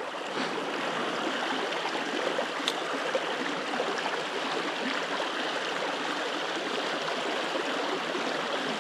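Small rocky trout stream running over a shallow riffle: a steady rush of water.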